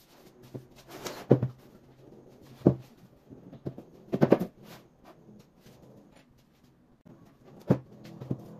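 Knocks and clatter of particleboard cabinet panels being handled and set against a wooden tabletop: a few sharp separate knocks, a quick rattle of several about halfway through, and another knock near the end.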